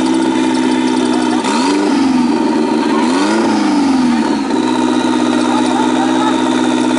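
Off-road buggy's engine running at a steady idle, revved twice in short rising-and-falling blips about one and a half and three seconds in.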